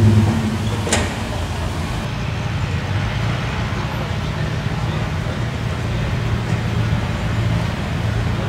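An engine running steadily with a low hum, with voices in the background and a sharp click about a second in.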